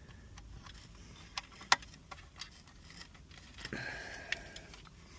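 Wiring leads being plugged into the back of a replacement radio head unit: a few small scattered clicks, the sharpest a little under two seconds in, and a brief rustle of cables about four seconds in.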